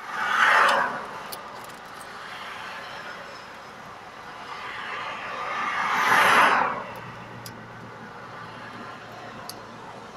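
Road traffic heard from inside a stopped car: two vehicles swish past, one about half a second in and one about six seconds in, each swelling up and dying away, with a steady low traffic hum between them.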